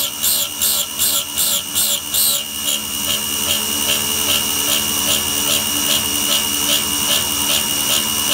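Belt-driven spindle of a GRBL-controlled hobby CNC mill, whining at a steady high pitch as its end mill cuts metal on a trochoidal toolpath. The cut swells and fades about two and a half times a second as the cutter loops in and out of the material. The pulses are sharpest for the first couple of seconds, then settle into a steadier, more even whir.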